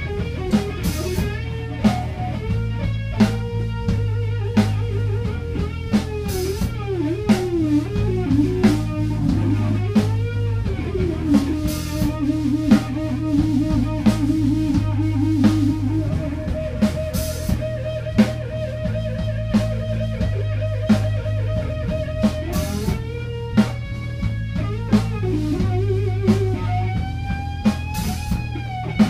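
Live electric blues-rock band playing an instrumental passage: an electric guitar solo with string bends and vibrato, and long held notes in the middle, over bass and a drum kit with regular cymbal hits.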